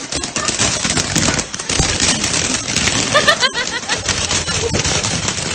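Firecrackers going off in rapid succession, a dense continuous crackle of pops. A short cluster of brief high squeals comes about three seconds in.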